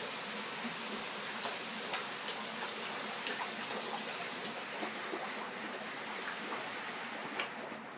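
Steady splashing and trickling of pond water, with many small splashes and drips as koi crowd and jostle at the surface.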